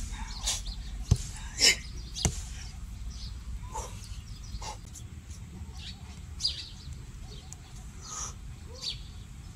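Hand and forearm strikes thudding against a tree trunk as Iron Hand conditioning, three sharp hits about a second apart in the first few seconds, with short animal calls in between.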